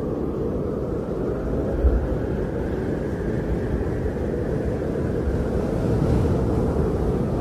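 Blizzard wind blowing as a steady low rush, buffeting the microphone, with gusts swelling about two seconds in and again near the end.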